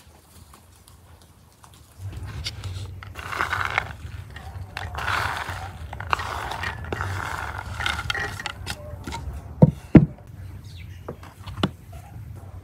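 Small fried pieces poured from a bowl onto a pan of cooked rice, a soft pattering in several pours, followed by two sharp knocks.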